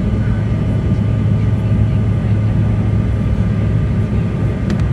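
Bombardier CRJ200ER's twin rear-mounted turbofans running under power during takeoff, heard from inside the cabin as a steady low rumble with thin, steady whining tones above it. Two faint clicks near the end.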